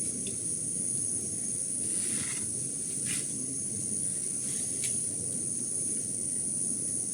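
Steady high-pitched drone of an insect chorus, such as cicadas or crickets, over a low outdoor rumble, with a few short chirps about two, three and five seconds in.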